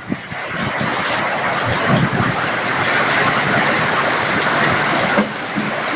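Rain falling steadily: a dense, even hiss with scattered louder drop impacts.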